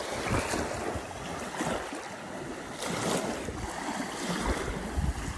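Small waves washing in over the sand at the water's edge, rising and falling in repeated swashes, with wind on the microphone.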